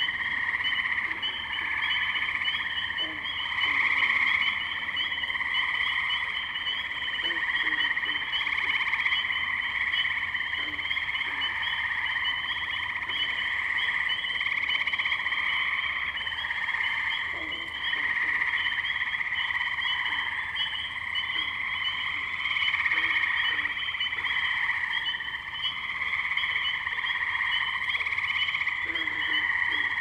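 Dense chorus of many tree frogs calling at once, their overlapping trills merging into a continuous pulsing sound at several pitches.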